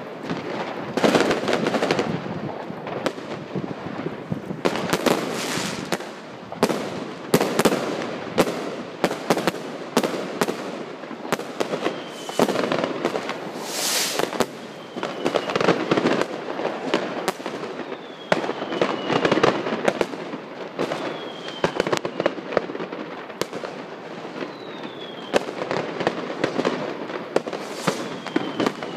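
Fireworks going off all around: a steady run of bangs and crackling bursts, many close together. From about halfway in, short falling whistles sound every few seconds among them.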